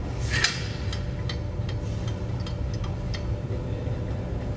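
Light, irregular clicks and taps as a roll of packaging film is handled and slid onto the metal unwind shaft of a pillow packing machine, over a steady low hum.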